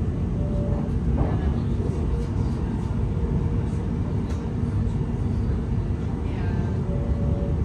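Interior running noise of a Class 701 electric multiple unit on the move: a steady low rumble of wheels on track, with faint passing tones and a brief high squeal about six seconds in.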